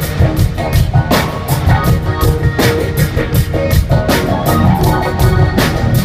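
Live rock band playing an instrumental groove: a drum kit keeps a steady beat with regular hits over bass, guitar and sustained keyboard notes.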